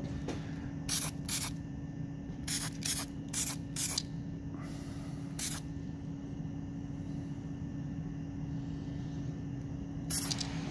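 Aerosol spray paint can hissing in short bursts, about eight quick sprays, over a steady low hum.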